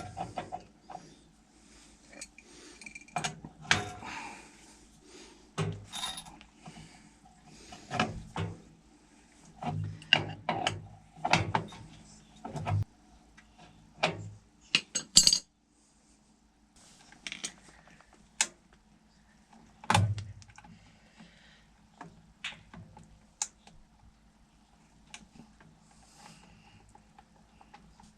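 Irregular metallic clanks, clicks and knocks of tools and fittings being handled by hand, with some louder strikes.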